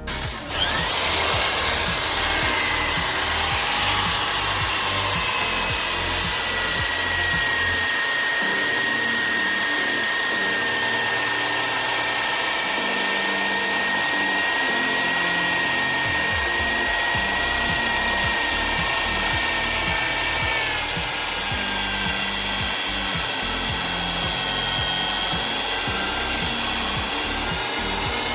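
An electric power tool running steadily on wood, with a high, even whine that shifts slightly about two-thirds of the way through. Background music with a steady beat plays underneath.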